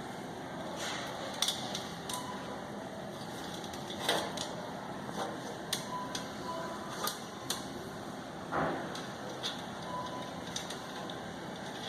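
Handling noise from a sewer inspection camera rig as its push cable is worked through a drain line: a steady hiss with scattered clicks and knocks.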